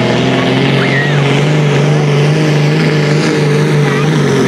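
Diesel engine of a sport-class pulling tractor running flat out under heavy load as it drags a weight-transfer sled, a loud steady drone whose pitch steps up about a second in.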